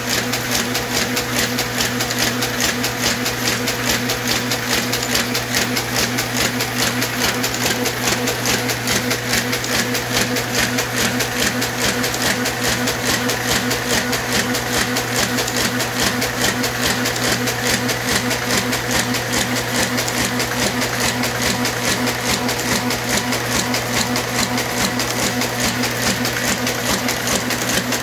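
Hamada 600 offset printing press running at speed, its gears, cams and sheet feeder making a rapid, even clatter over a steady motor hum.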